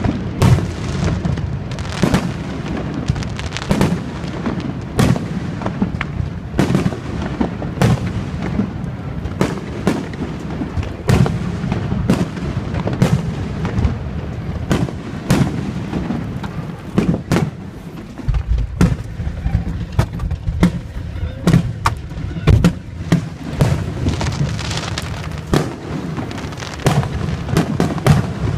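Fireworks display: aerial shells bursting in quick succession, several bangs a second over a continuous low rumble, easing slightly for a few seconds midway.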